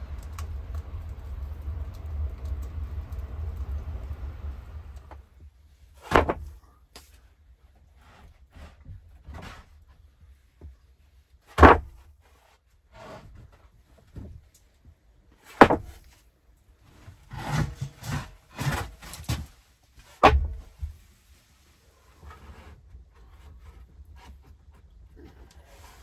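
Steady low rumble of storm wind for about the first five seconds, then stops. Then comes a series of sharp wooden knocks a few seconds apart, with a quick run of knocks in the middle, as sawn wooden planks are handled and set down.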